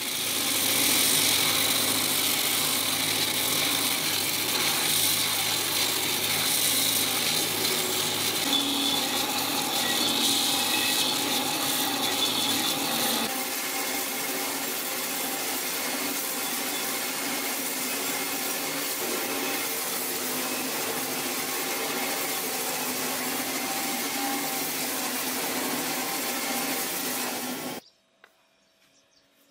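Belt grinders running with an iron sword blade pressed against the abrasive belt: a steady grinding hiss over the motor's hum. The sound changes abruptly about halfway through as a second grinder takes over, then cuts off shortly before the end.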